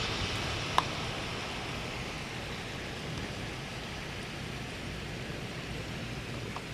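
Heavy summer rain falling steadily, a constant hiss, with a single sharp click about a second in.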